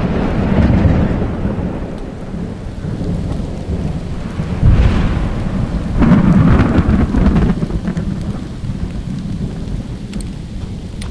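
Thunder rumbling over steady rain, in several long rolls, the loudest about five and six seconds in, easing off toward the end.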